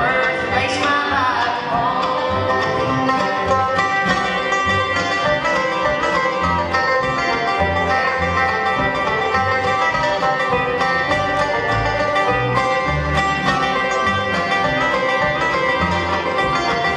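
Live bluegrass band playing, with banjo, fiddle, acoustic guitar, mandolin and upright bass together at a steady pulse.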